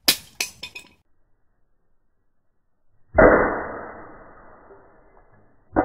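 A thrown chunk of cast tin-bismuth alloy hits and clatters: a sharp impact with a few quick rattling bounces in the first second. About three seconds in comes a louder, dull, low strike that dies away slowly, and another like it starts near the end.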